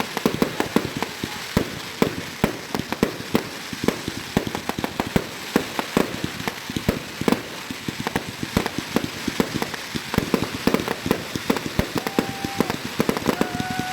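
Many fireworks and firecrackers going off: a dense, irregular run of sharp bangs and crackles, several a second, with no let-up. Near the end a short steady whistle-like tone sounds twice.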